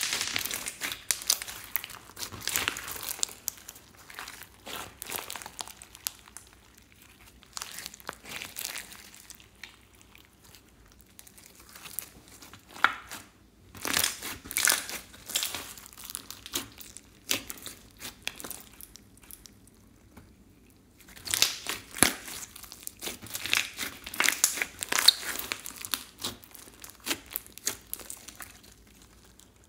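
Hands squeezing, kneading and stretching sticky slime mixed with makeup and beads. It gives streams of small sharp pops and clicks in bursts, with quieter stretches between.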